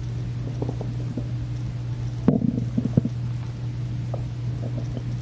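Empty, hungry stomach gurgling: short irregular gurgles and pops, with a louder cluster about halfway through, over a steady low hum.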